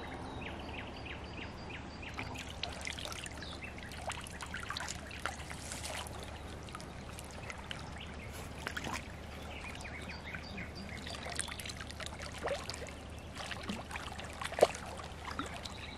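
Shallow water splashing and sloshing as a hooked carp is played and drawn into a landing net, with many short splashes and one sharper splash near the end.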